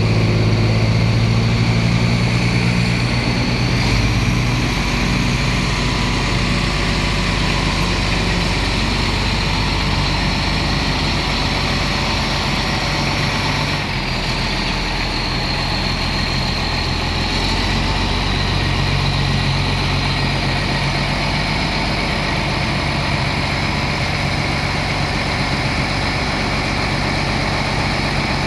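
Komatsu D65PX-12 bulldozer's diesel engine running steadily, its note shifting a few times: about four seconds in, again near the middle, and a few seconds later.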